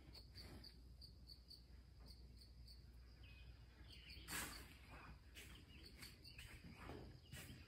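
Near silence: faint room tone with one soft bump about four seconds in.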